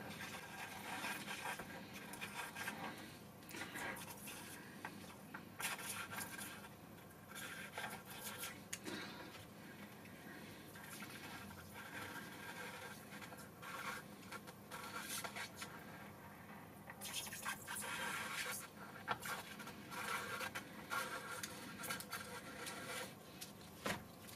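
Faint, irregular scraping and soft crackling of a wide soldering iron tip drawn along the pins of a new PCI Express x16 slot as they are soldered to a motherboard with flux.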